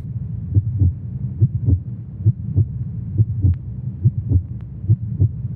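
Heartbeat sound effect: a slow, steady double thump repeating about once a second over a low, steady drone.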